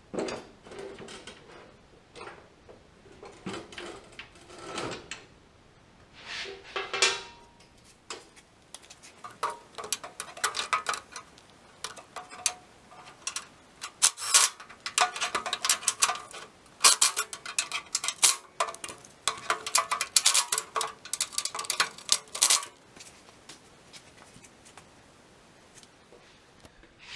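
Metal hand tools clinking and rattling against steel in a quick, irregular run of clicks and knocks while working around the hydraulic hose fittings. The clatter is sparse at first, busiest through the middle, and stops abruptly a few seconds before the end.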